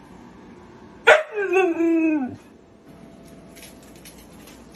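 A husky gives one drawn-out call about a second in, starting sharply and sliding down in pitch over just over a second.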